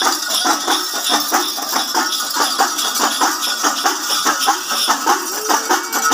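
Ensemble of udukku hourglass hand drums played fast in a dense, steady rhythm of several strokes a second, with a bright metallic jingling over it.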